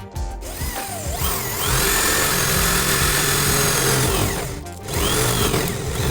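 Electric power tool motor spinning up, running at speed for about three seconds, slowing, then spinning up again briefly near the end, over background music.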